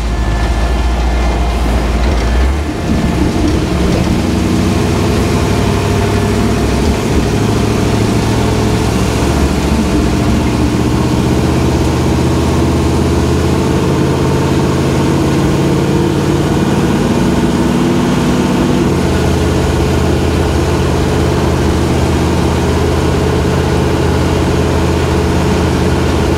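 Divco milk truck's engine running while driving, heard from inside the cab with the door open. The engine note changes pitch a few times, with road and wind noise underneath.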